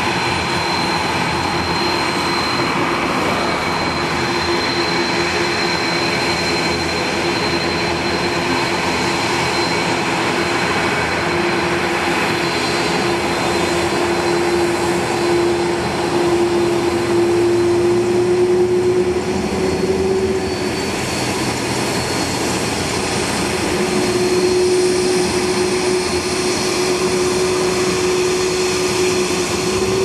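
Airbus A330-300 jet airliner's twin turbofan engines running steadily at low power as it taxis: a continuous whine with a held hum that rises slightly in pitch around the middle and swells a little later on.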